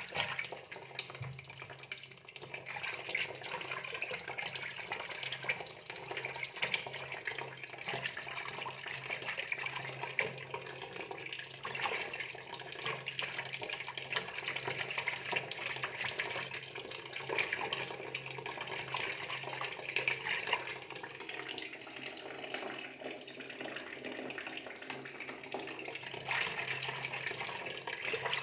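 Steady running and splashing water, like a tap or hose left running, over a faint low hum.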